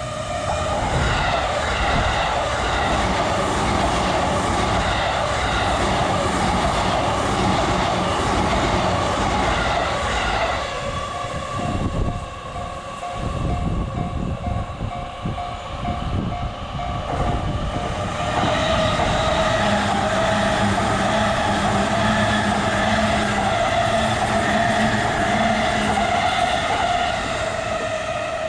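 Japanese railway crossing bell ringing in a steady repeating rhythm while two electric commuter trains run through the crossing one after the other. Between the trains, about a third of the way in, the bell is heard more clearly on its own.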